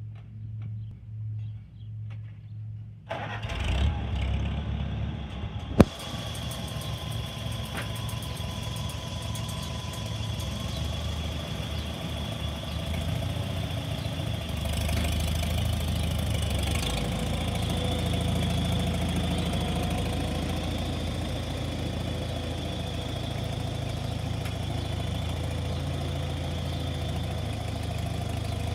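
Farmall H tractor's four-cylinder gasoline engine being cranked, catching about three seconds in, with one sharp bang a few seconds later. It then runs steadily, getting louder about halfway through as the tractor gets under way.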